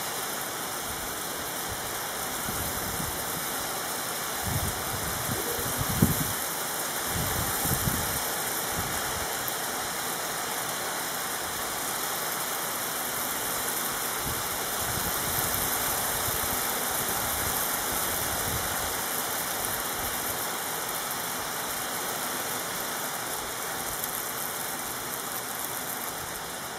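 Fine hail and graupel falling steadily on roofs and ground, a dense even hiss. Low rumbles come and go in the first third, with a sharp knock about six seconds in.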